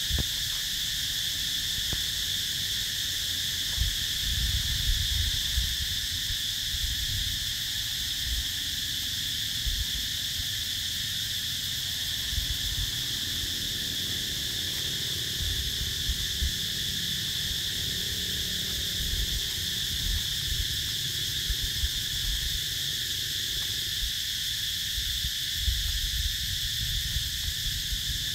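Steady, high-pitched insect chorus droning without a break, with uneven low rumbles coming and going underneath.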